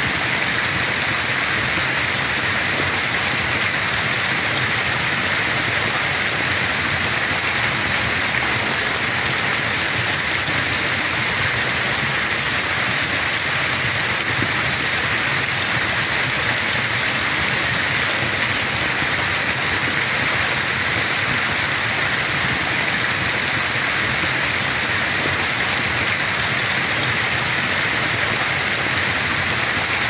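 Heavy rain pouring onto wet, puddled ground: a dense, steady hiss of countless splashing drops.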